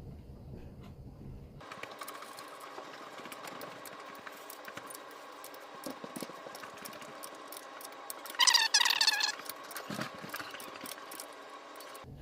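Metal hand-tool work on a bicycle fork's steer tube: the bolt of a star nut remover being threaded and turned into the star nut, making light clicks and scrapes. A brief, loud metallic squeal comes about eight and a half seconds in.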